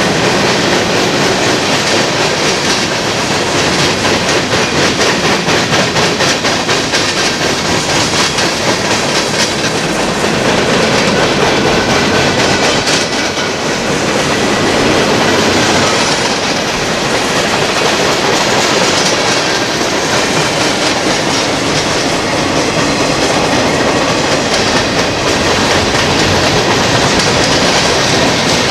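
Freight train cars rolling past, with a steady loud clatter of steel wheels on the rails.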